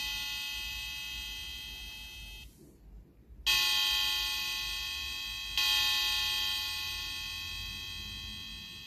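Electronic bell tone from the APEX Melody Box's small speaker striking the hour: one strike fading out, then two more about three and a half and five and a half seconds in, each ringing and slowly dying away. These are the hour-count strikes that the box plays after its hourly melody, triggered by the SKP Melody Module.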